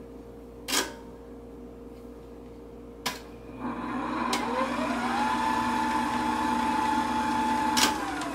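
KitchenAid bowl-lift stand mixer running with its dough hook in an empty bowl. After a couple of sharp clicks, the motor starts about three and a half seconds in with a whine rising in pitch and then runs steady. Near the end a click switches it off and the whine starts to fall as it winds down.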